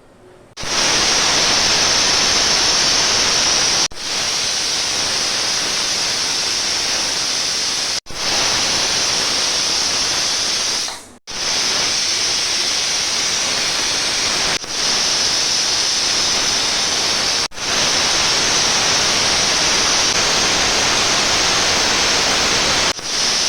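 Pressure cooker whistle venting steam: a loud, steady hiss from a cooker at full pressure. It breaks off for a split second and resumes about every three to five seconds, six times in all.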